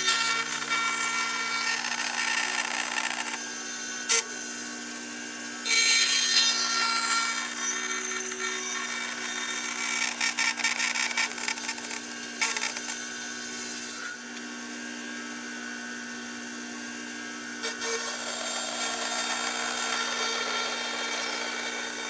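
Bandsaw running with a steady motor hum, its blade cutting through a poplar board in three bouts, the first about three seconds long, the second about six seconds long, and the last starting near the end.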